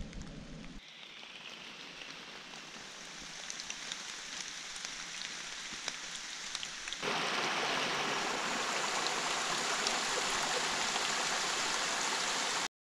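Soft hiss of rain with scattered small drips, then from about seven seconds in a small mountain stream running over rocks, louder and steady, until the sound cuts off abruptly near the end.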